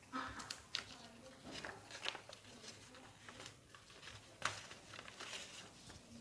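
Sheets of colour paper rustling and crinkling as they are folded around small cardboard boxes, with scattered sharp crackles, the loudest about four and a half seconds in.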